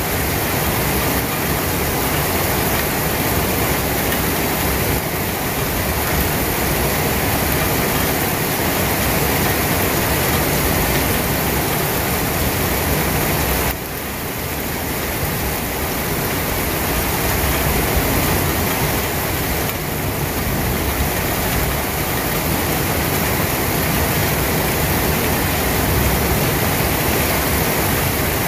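Steady rain, an even rushing hiss with no single drops standing out, dipping briefly in level about halfway through.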